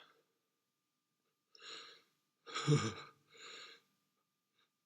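A person with a head cold taking three short, noisy breaths between sneezes, about a second and a half, two and a half and three and a half seconds in. The middle breath is loudest and gasp-like.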